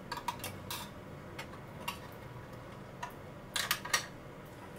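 Light clicks and taps of small utensils being set into a small stainless-steel holder on a miniature stove, metal and wood knocking against metal. The clicks are scattered, with a quick cluster of the loudest ones near the end.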